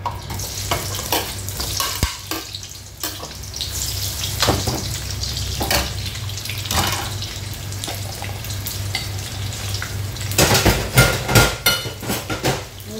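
Sliced onions frying in hot cooking oil in a nonstick wok, sizzling with constant crackles and pops. Near the end there is a short burst of louder knocks and crackling.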